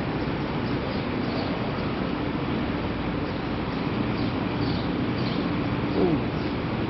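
Street ambience: steady traffic rumble with a low hum, and a few faint bird chirps from the trees.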